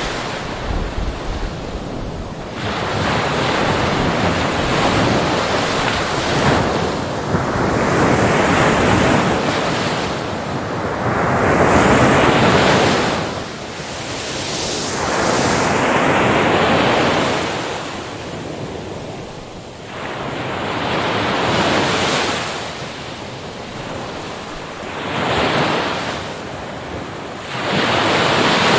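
Ocean waves breaking on a beach, each wash swelling and fading every few seconds, with wind on the microphone.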